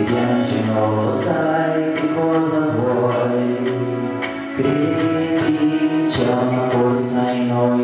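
A man singing into a handheld microphone over a karaoke-style backing track.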